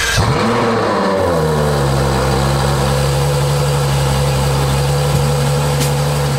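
Ferrari F12 TDF's 6.3-litre V12 just after starting: a rev flare in the first second that falls back and settles into a steady idle. There is a faint click near the end.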